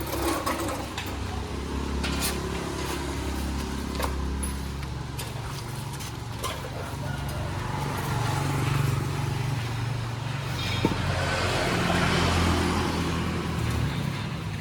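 Engine of a YM3000 mini chopper machine running steadily, with its pitch and loudness swelling for a few seconds twice in the second half.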